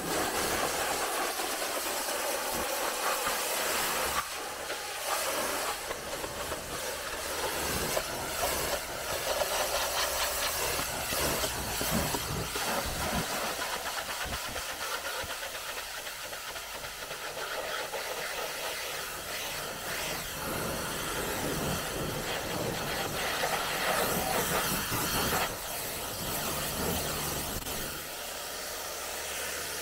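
Pressure washer jet spraying water onto a car's body panels: a steady, loud hiss of spray with a low mechanical hum underneath. It eases off somewhat near the end.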